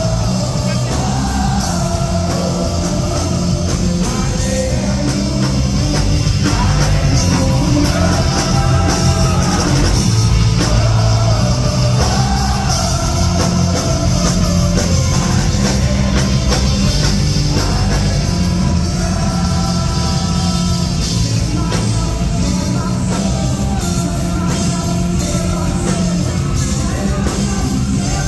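Rock band playing live: drums, bass and electric guitars under a sung melody, loud and steady throughout.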